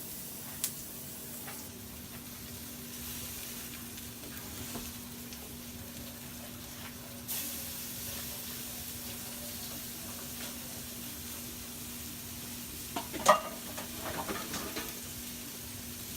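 Turkey burger patties sizzling steadily in a hot pan, with a sharp clack about thirteen seconds in.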